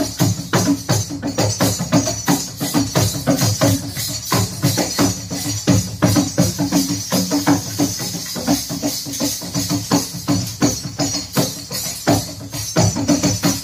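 Chimta (long fire-tongs with jingle discs) and wooden kartal clappers shaken and struck together in a fast, steady rhythm of jingling strokes, about five a second.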